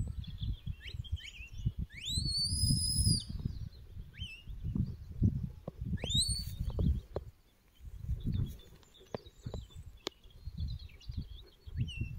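A sheepdog handler's whistle commands: two long whistles that rise sharply and then hold, about two and six seconds in, with shorter whistle notes between. Wind buffets the microphone throughout.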